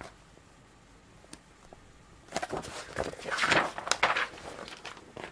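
Paper pages of a picture book rustling as the book is handled and held up. The rustling starts about two seconds in and lasts about two seconds.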